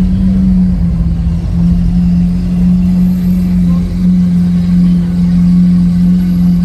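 Lamborghini Aventador SV Roadster's V12 with its Capristo exhaust running at a steady engine speed: a constant low drone with a slight drop in pitch about a second in.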